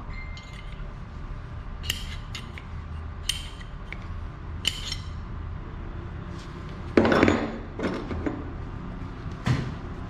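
Small metal clicks and taps as a pick and the pedal's parts are worked and handled, a few seconds apart, with a louder clatter about seven seconds in.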